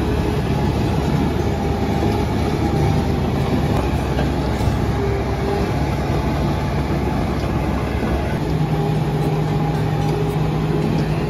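Small crawler bulldozer's diesel engine running steadily as it tracks through shallow river water, with the churn of water around its tracks. About eight seconds in the deep rumble drops away and a steadier engine hum comes through.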